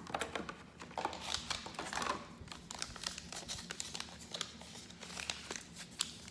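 Plastic packaging crinkling and clicking irregularly as it is handled.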